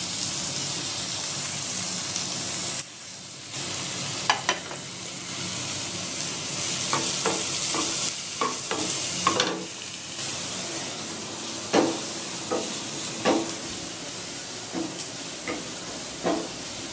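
Chopped onions sizzling as they fry in sesame oil in a pan, with a utensil scraping and knocking against the pan at irregular intervals as the onions are stirred. The sizzle drops briefly about three seconds in.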